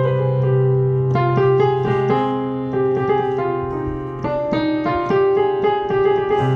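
Digital piano playing a slow melody of single notes in the C harmonic minor scale over a low C–G–C chord held in the left hand as a ringing pedal tone, giving a mysterious, minor-key mood.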